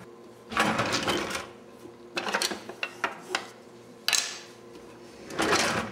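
Kitchen utensil drawer being rummaged through for a spoon: the drawer sliding and ladles, spatulas and spoons clattering and clinking against each other in several bursts.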